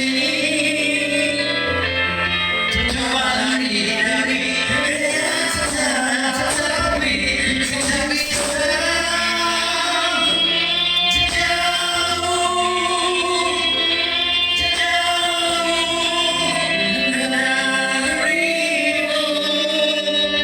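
Music with singing: held, sung notes over a backing with low bass notes.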